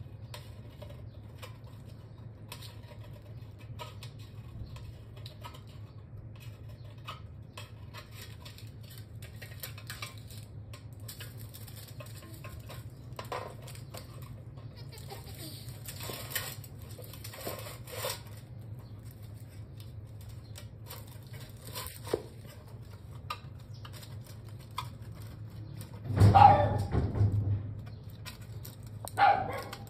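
A male tortoise mounting a rusty metal stovepipe as if mating: faint scattered taps and scrapes of shell and claws against the pipe over a low steady hum. It is followed by two louder open-mouthed calls from the tortoise near the end, a longer one and then a short one, the kind of vocalising male tortoises do while mating.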